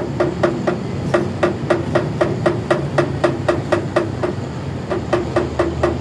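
A hammer tapping on metal, in quick even strikes about four a second, each with a short ringing note, during work on a Canter truck's radiator.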